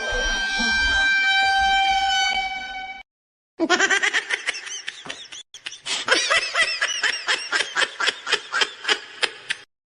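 Comedy sound effects: a steady horn blare for about three seconds, then after a short gap a rapid run of warbling pulses, about four a second, that stops just before the end.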